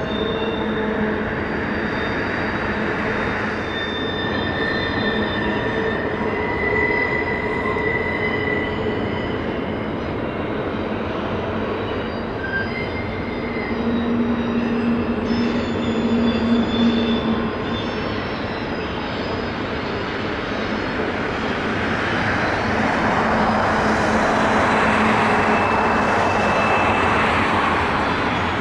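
CN freight train rolling past with a steady rumble of wheels on rail. Its wheels squeal in several thin high tones that come and go, and the rushing noise swells louder near the end.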